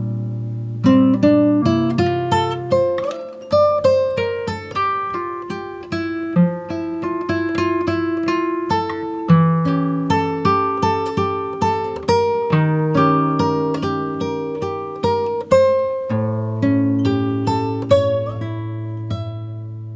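Acoustic guitar music: a steady run of plucked notes and chords.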